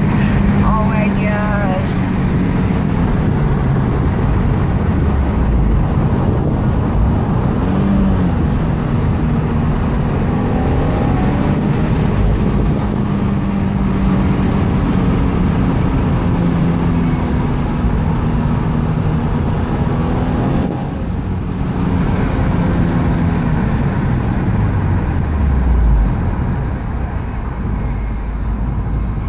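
The 2015 Subaru WRX's turbocharged 2.0-litre flat-four engine is heard from inside the cabin, running steadily under way over tyre and road noise. About two-thirds of the way in the engine sound briefly drops away. Shortly after, its pitch falls lower as the revs come down.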